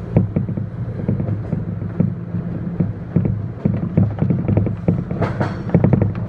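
Subway train running on its rails, heard from inside the front car: a steady low rumble with frequent rattles and clicks. About five seconds in there is a short high-pitched squeal as the train enters the station.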